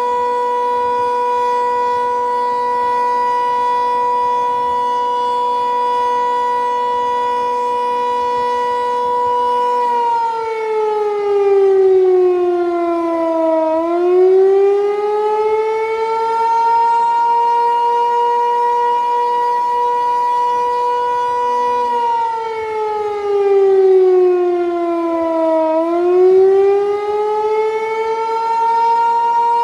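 Federal Signal 508 outdoor warning siren sounding with a broken rotator, so its loudness stays steady instead of sweeping as the horn turns. It holds a steady tone for about ten seconds. Then the pitch sags and climbs back over several seconds, twice.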